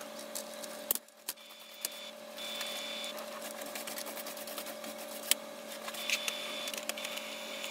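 Brother DCP-T710W ink-tank printer running its initial print-head cleaning cycle: a steady mechanical hum with short higher whines that come and go. A few sharp plastic clicks and knocks come from the paper tray as it is loaded and slid back in.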